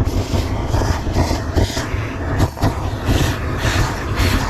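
Hydrovac excavation truck running: a steady, heavy engine and vacuum rumble, with a rushing hiss that comes and goes every second or so as the suction hose pulls up water and soil.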